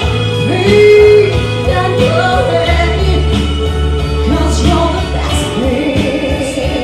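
A woman singing live into a microphone over pop accompaniment with a steady bass and beat, holding a loud sustained note about a second in.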